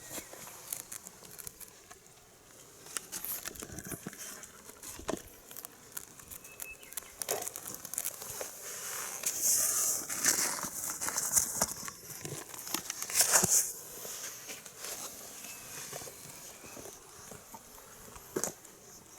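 Kittens at play: scattered light taps and scuffling with rustling, and louder bursts of scrabbling about ten and thirteen seconds in.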